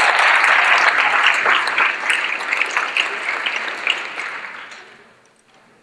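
An audience of a few hundred applauding, dense clapping that thins out and fades away over the last couple of seconds.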